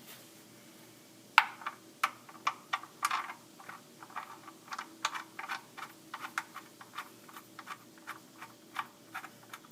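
Irregular metallic clicks, about two or three a second, starting about a second in: a ratchet wrench being worked as the oil drain plug is run back into the oil pan.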